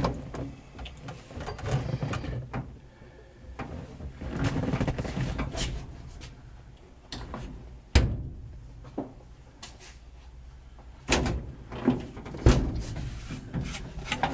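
Irregular clunks, knocks and scraping of a heater unit being handled and worked into its mounting position in a truck cab, with one sharp knock about eight seconds in and a cluster of knocks near the end.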